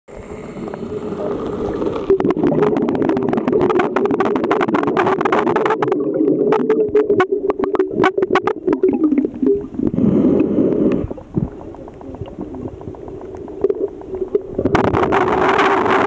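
Underwater sound in a swimming pool: a steady hum with many scattered clicks and crackles. It drops quieter about eleven seconds in and comes back up near the end.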